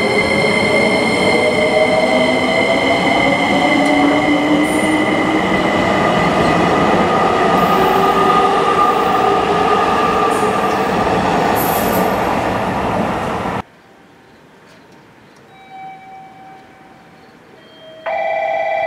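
JR Kyushu 885-series limited express electric train pulling away from the platform: the carriages roll past with a rumble while the traction motors' whine glides upward in pitch as it gathers speed. The sound cuts off suddenly about 14 s in, and near the end a steady electronic tone starts.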